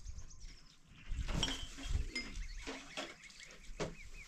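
Goats bleating a few times, with short repeated high chirps near the start and the end.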